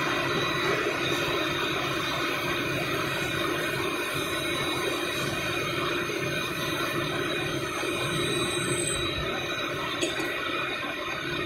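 Steady machine-shop noise: machinery running on the factory floor as an even rushing din with faint steady hums. There is a single sharp click about ten seconds in.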